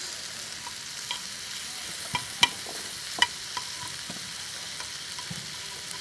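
Sliced beef kidney sizzling on a hot grill pan, a steady hiss. Several sharp, ringing clinks of tableware cut through it, the loudest about two and a half and three seconds in.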